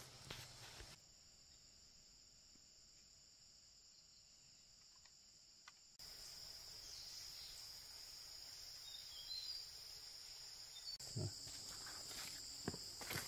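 Faint, steady, high-pitched insect drone, shifting abruptly in pitch and loudness about a second in and again halfway through. From about eleven seconds in, footsteps on a dirt path join it as a thump and scattered light crunches.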